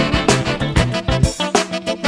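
Upbeat instrumental background music with a steady beat.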